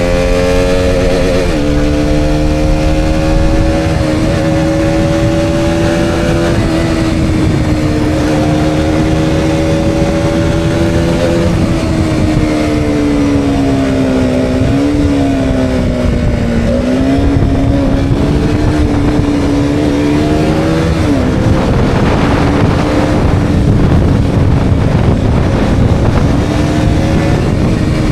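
KTM Duke 200's single-cylinder four-stroke engine running hard under way, its pitch rising and falling with the throttle and dropping sharply twice, about a second and a half in and again about 21 seconds in. Wind rush on the helmet-mounted microphone grows stronger over the last few seconds.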